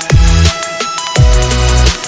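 Electronic drum-and-bass background music with heavy bass drops, twice, and synth lines.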